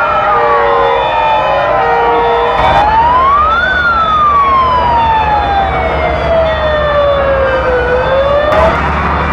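Several fire engine sirens wailing at once, their slow rising and falling glides overlapping, with another siren's tone pulsing on and off about twice a second. A low rumble sits underneath from a few seconds in.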